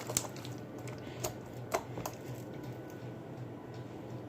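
Homemade slime being stretched by hand, giving a few sharp sticky clicks, four in the first two seconds, over a faint steady low hum.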